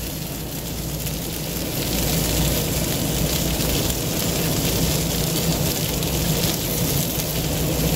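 Chicken thighs and bell peppers sizzling on a Blackstone griddle, a steady crackling hiss that grows a little louder about two seconds in, over a steady low hum.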